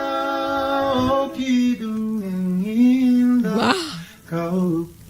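A voice singing long held notes, each sustained for about a second before stepping to a new pitch, with a short breath-like hiss about three and a half seconds in.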